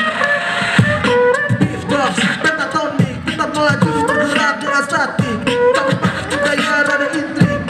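Group beatboxing through microphones and a PA system: mouth-made kick and snare strikes in a steady beat, with several voices carrying pitched melody notes over it.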